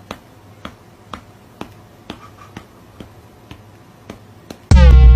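Finger snaps at a steady beat, about two a second. Near the end, loud electronic music cuts in with deep bass and a sliding pitched tone.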